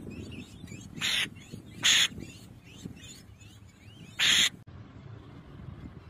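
Downy raptor chicks begging at the nest with harsh screeching calls: three short, loud screeches with fainter chirps between them. The sound drops away suddenly after the third screech.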